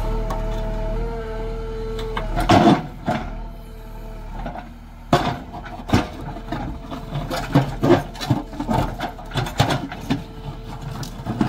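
JCB 3DX backhoe loader working, its engine running with a steady whine. A loud burst comes about two and a half seconds in, and from about five seconds on there is a string of irregular clanks and knocks.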